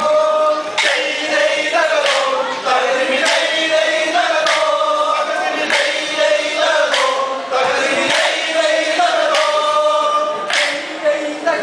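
Group of men singing a Kolkali song in chorus, with short wooden sticks struck together in a sharp clack a little more often than once a second, in time with the song.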